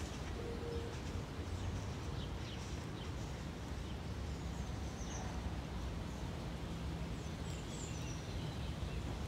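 Steady low outdoor background rumble with a few faint, short bird chirps scattered through it.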